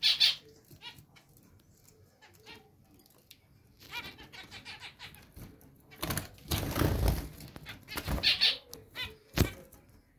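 Zebra finches giving short nasal calls, with a burst of wing flapping about six seconds in and a sharp click near the end.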